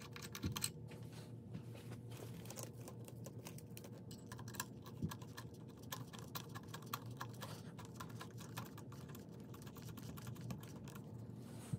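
Light, irregular clicks and taps of small metal and plastic parts handled by hand at the carburetor throttle linkage of a 52cc two-stroke outboard engine while its throttle return spring is fitted. A faint steady hum lies underneath.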